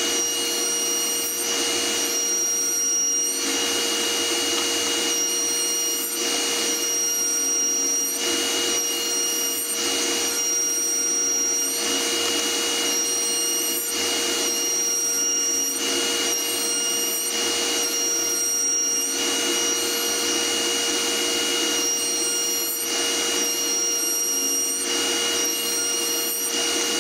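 Router table spinning a raised-panel bit, with a steady whine, as MDF panels are fed past it in a full-depth cut. The cutting noise swells and eases every couple of seconds as each edge goes through.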